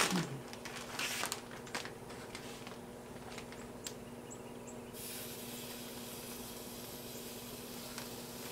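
A knock, then a plastic zip bag crinkling as marinated portobello mushrooms are pulled out of it. From about five seconds in a steady sizzling hiss sets in as they go onto the hot gas grill grates.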